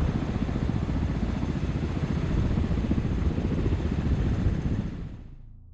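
Sikorsky-Boeing SB>1 Defiant coaxial-rotor helicopter running, a heavy rapid pulsing rumble from its rotors that fades away about five seconds in.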